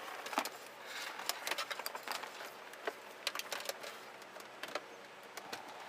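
Loose cable being fed in behind a dashboard, with light rustling and scattered small clicks and taps of wires and connectors against plastic dash parts.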